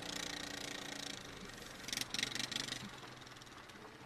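Car engine idling, heard from inside the car, with a short run of clicks about two seconds in.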